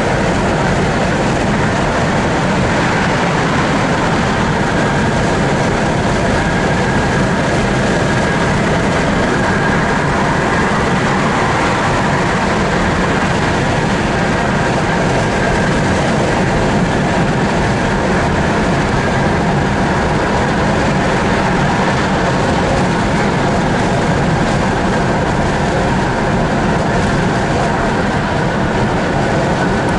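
Steady road noise inside a car driving at freeway speed: an unbroken rumble of tyres and wind.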